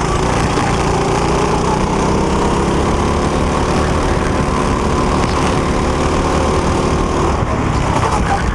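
Go-kart engine running hard, heard from on board the kart; its note shifts slightly in pitch as the driver works the throttle through the corners.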